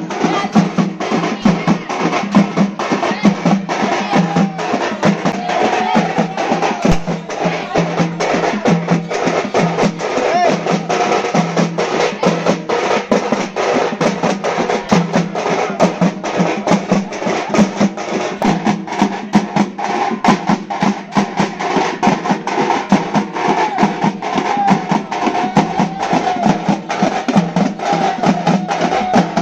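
Parai frame drums beaten by a group of drummers in a fast, dense, unbroken rhythm.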